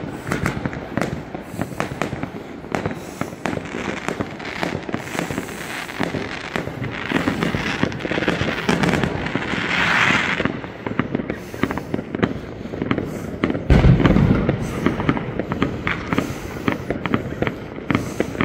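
Many fireworks going off at once: a steady run of sharp bangs and crackling. A hissing crackle swells about halfway through, and a deep bang follows a few seconds later, the loudest moment.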